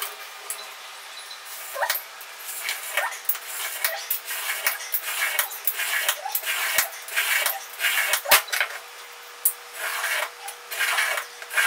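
Utility knife blade scoring a thin aluminium sheet along a straight edge: a run of short scraping strokes, some with a brief squeak.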